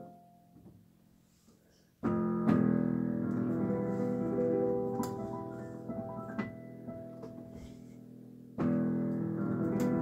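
Digital piano: a phrase dies away into a pause of about two seconds. Then a loud chord is struck and left to ring while a few single notes are added over it. A second loud chord comes in near the end.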